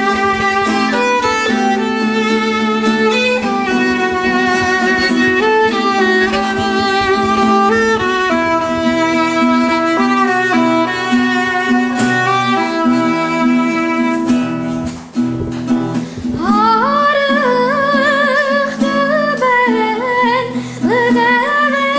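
Violin playing a melody over acoustic guitar accompaniment. About two-thirds of the way through the violin stops and a boy's singing voice, with vibrato, takes up the melody over the guitar.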